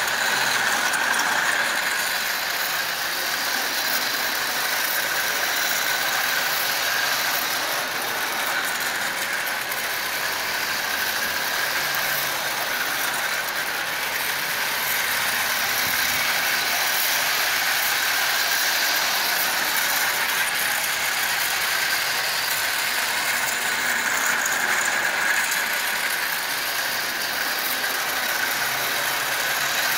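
Marx tinplate toy electric train, a small steam locomotive and its floodlit tender, running steadily along three-rail tinplate track: the geared motor whirring and the wheels rattling on the metal rails.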